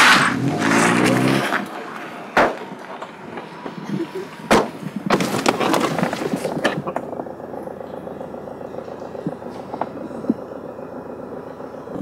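A small hatchback's engine winding down as it pulls up and stops, then sharp knocks about two seconds apart and rustling at the car door as a person gets in or out, quieter from about seven seconds in.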